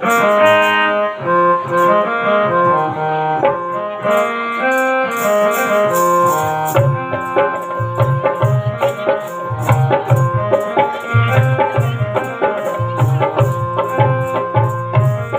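Indian folk-style music: a melody instrument plays a stepping tune of held notes, joined about four seconds in by high ticking percussion keeping time and about seven seconds in by a hand drum beating a steady rhythm.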